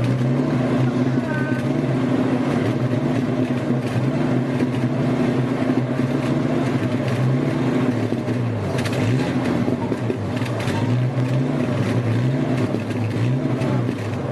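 A classic car's engine idling, its pitch wavering slowly up and down, with a brief dip and rise about nine seconds in.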